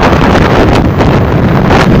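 Wind buffeting the microphone of an open vehicle moving at speed, loud and steady, with the rumble of the vehicle and road underneath.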